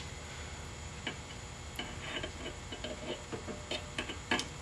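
Faint, irregular clicks and small taps from a brass pump oil can being worked to squirt oil onto a drill press bit.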